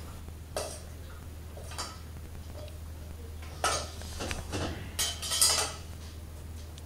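Several short clatters and scrapes of a metal pot and cutlery, the loudest a little past the middle and near the end, over a steady low hum.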